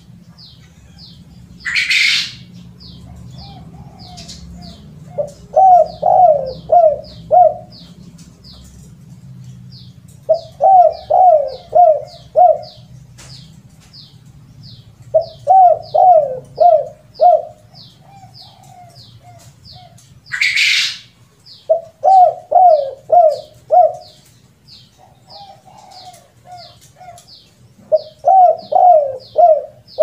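Spotted dove (tekukur) cooing: five phrases of several quick coo notes each, about every five to six seconds, a few of them led in by softer notes. Two brief loud rustling noises fall about two seconds in and about two-thirds of the way through, and faint high chirps repeat steadily, about two a second, behind it all.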